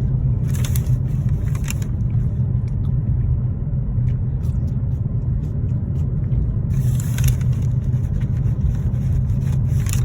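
Steady low rumble of a car heard from inside the cabin, with brief hissy rustling about half a second in and again from about seven seconds in.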